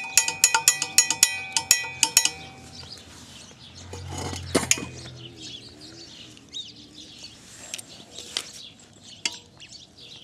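Loose metal parts of a stripped-down Briggs & Stratton mower engine being jiggled by hand: rapid ringing metallic clicks and clinks, several a second for about two seconds, then sparser, quieter clicks with a dull bump about four seconds in.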